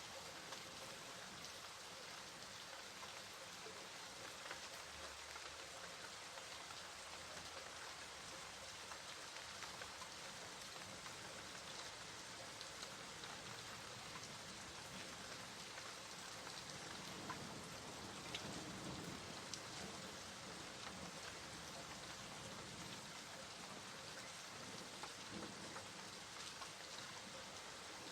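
Steady rain falling, an even hiss with scattered faint drop ticks, swelling slightly in the low range for a few seconds past the middle.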